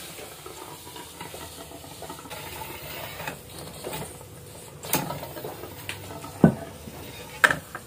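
Wooden block knocking a heated air-rifle barrel a few times, three sharp knocks in the second half with the loudest about six and a half seconds in, to break its glued joint with the chamber. Underneath runs a steady faint hiss as the hot chamber end sits in a bucket of water.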